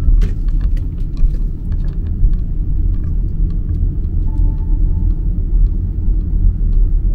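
Steady low rumble of a car driving, heard from inside the cabin, with scattered faint clicks.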